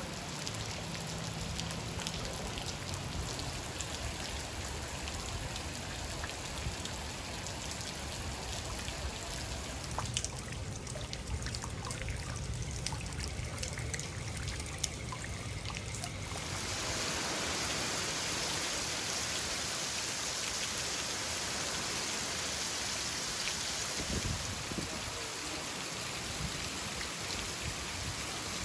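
Rain falling on standing floodwater, with water trickling and running. About two-thirds of the way through, the sound becomes a denser, steady hiss of heavy rain.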